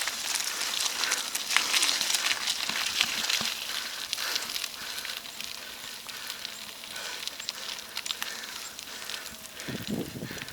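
Bicycle riding along a road: steady crackling tyre and wind noise. From about four seconds in, a faint sound repeats roughly every half second.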